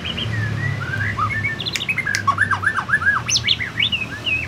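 White-rumped shama singing a run of varied whistled notes: quick rising and falling slurs mixed with sharp chips, sparse at first and then busy from a little under two seconds in.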